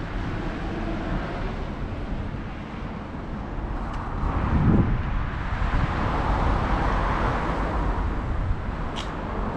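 Road traffic noise: a steady low rumble that swells about halfway through, as a vehicle passes. A short sharp click comes near the end.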